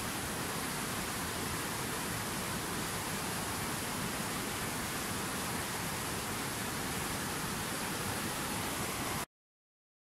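Fast whitewater mountain river rushing steadily over rocks, an even noise with no rhythm; it cuts off suddenly about nine seconds in.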